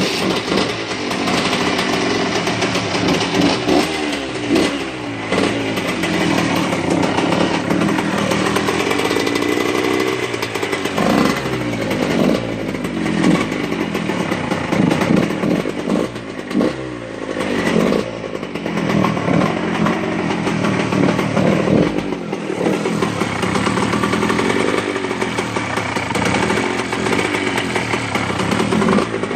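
Freshly rebuilt 2002 Honda CR125 single-cylinder two-stroke engine running on its first start after a full rebuild, idling and being revved up and back down again and again.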